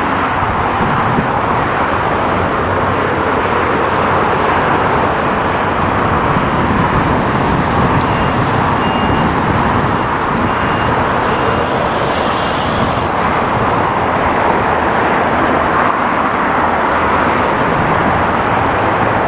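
Steady, loud roar of jet airliner engines mixed with road traffic, holding level without rising or falling. A faint, intermittent beeping tone sits under it about halfway through.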